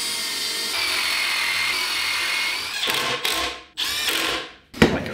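Cordless drill driving screws into half-inch plywood: one steady run of about three seconds, then two short bursts and a sharp click near the end.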